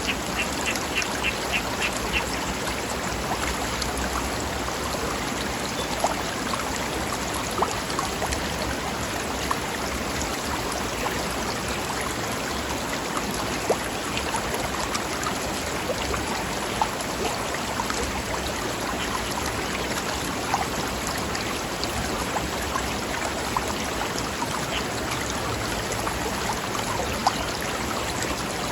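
Mountain stream rushing steadily over rocks, with small splashes. A bird gives a short call repeated about four times a second at the start, and again near the end.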